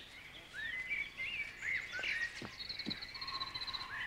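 Wild birds calling in woodland: short rising and falling whistles, then a rapid trill near the end.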